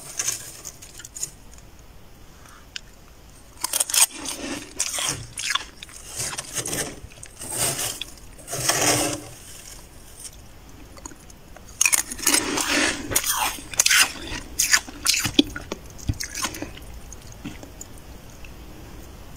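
Someone biting into and chewing fluffy freezer frost, giving crisp crunches in several bursts with pauses between them. The longest burst runs from about twelve to sixteen seconds in.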